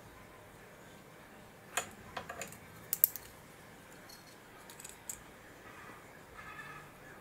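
A handful of sharp clicks and taps from small hard objects being handled, the loudest cluster about three seconds in; near the end a cat starts to meow.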